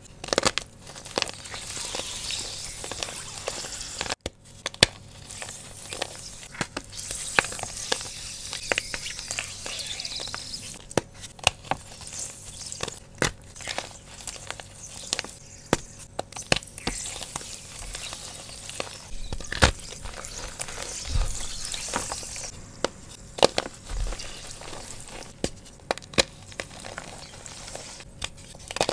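Fresh blocks of Sports Chalk gym chalk crunched and crumbled in wet hands: a stream of sharp crackling crunches over a hissing sizzle as the chalk soaks up water.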